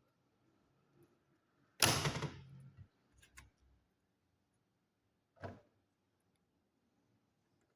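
Hard knocks and small clicks from handling the all-in-one PC's casing and tools. A loud clack about two seconds in trails off in a brief rattle, a couple of light clicks follow, and another knock comes at about five and a half seconds.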